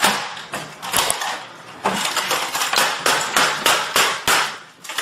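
A plastic computer keyboard being slammed against a desk again and again, a rapid series of hard smacks with the keys clattering.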